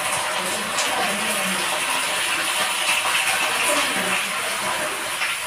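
Pork meatballs sizzling in hot oil in a frying pan as tomato passata is poured over them, a steady hiss, with a few light clinks as the pan is stirred.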